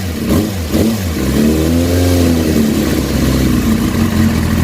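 2005 Yamaha R6's 600 cc inline-four idling, its revs rising and falling once about two seconds in. The bike has an intermittent rough idle in which the fuel injection over-injects and it runs rich.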